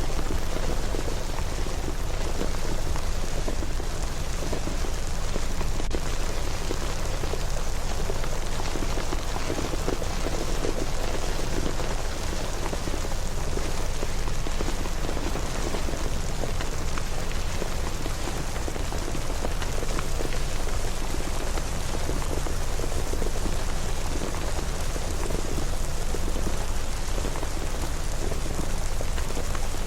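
Steady rain falling, an even hiss with faint scattered drop ticks over a constant low rumble.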